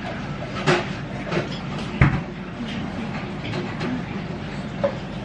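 Restaurant room noise: a steady low hum with scattered short clicks and knocks, the loudest a single thump about two seconds in.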